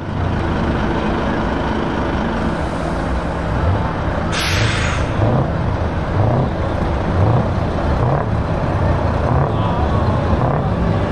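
Heavy diesel lorry engines running in a queue, with a sharp air-brake hiss about four seconds in. After it, an engine is revved again and again, a rising rev about once a second.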